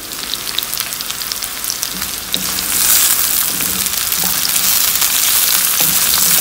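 Sliced onions sizzling and crackling in hot oil in a wok, being fried toward golden brown and stirred with a wooden spatula. The sizzle gets louder about two seconds in.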